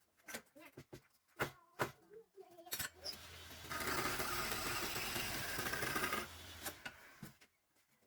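Several sharp knocks and clicks, then a power tool runs steadily for about two and a half seconds before stopping, followed by a couple more knocks.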